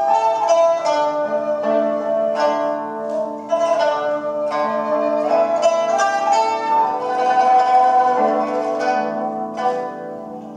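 Traditional Chinese instrumental trio playing: long held notes on a xiao (end-blown bamboo flute) over rippling plucked pipa and hammered yangqin notes.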